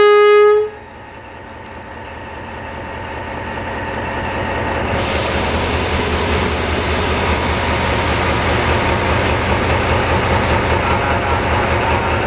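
A diesel locomotive's horn cuts off about half a second in. The locomotive then approaches and passes close, its steadily growing rumble and the hiss of wheels on rail reaching full loudness after about five seconds, with an even rhythmic beat underneath.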